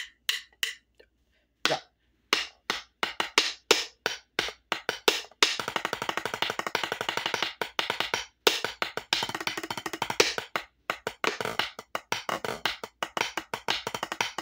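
Drumsticks playing a marching snare part on a rubber practice pad at about 160 beats a minute: separate sharp taps with a short pause about a second in, then from about five seconds in a dense run of fast strokes and rolls.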